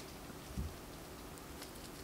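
Quiet handling of scone dough and bacon with plastic-gloved hands: one soft low thump about half a second in, then a few faint small ticks.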